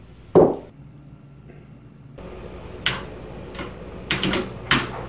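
A single clunk about half a second in, then computer keyboard keys clicking in short, irregular runs of typing.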